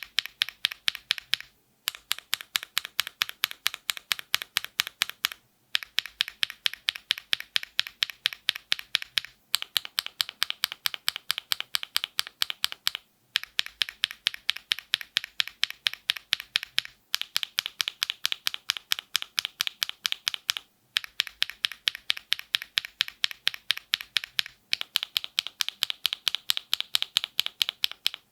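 Fast, steady typing on a mechanical keyboard, a quick run of key clacks and bottom-outs. It comes in runs of about four seconds each, split by short silent gaps.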